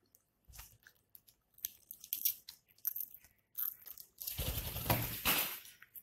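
Ringneck parakeet's beak crunching and clicking on a small toy in scattered bursts, then a louder rustling, scraping rush lasting about a second and a half near the end.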